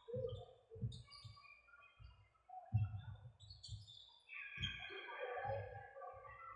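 Birds chirping in short scattered notes, over repeated low rumbling bumps on the microphone.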